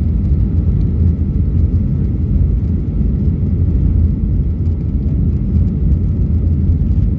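Steady low rumble of a jet airliner's engines and rushing air, heard inside the passenger cabin during descent.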